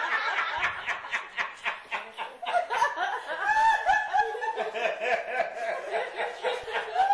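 Laughter: a quick run of short laughs, about five a second, turning into higher, drawn-out pitched laughs about halfway through.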